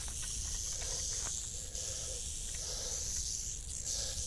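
A rattlesnake rattling its tail in warning: a steady, high buzz that never lets up.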